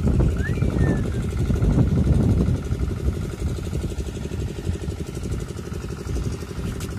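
An engine idling steadily, with an even, repeating beat.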